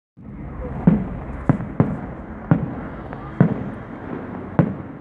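Fireworks going off: six sharp bangs at uneven intervals, roughly one a second, over a continuous background of noise.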